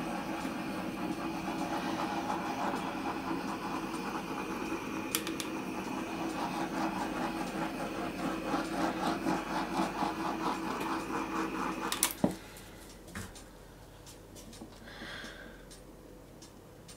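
Handheld gas torch burning with a steady hiss as it is passed over wet acrylic pour paint to pop air bubbles. It cuts off with a click about twelve seconds in.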